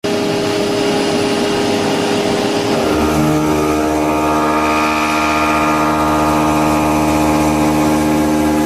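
Six-axis CNC machine running, its motors giving a steady multi-toned whine that shifts to a new set of pitches about three seconds in as the machine changes speed.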